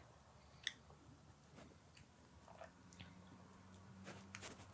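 Near silence: room tone with a few faint short clicks and a faint low steady hum.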